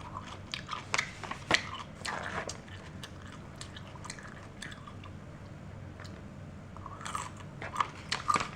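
A person biting into and chewing crunchy pickled green beans, with crisp crunches clustered in the first two seconds and again near the end.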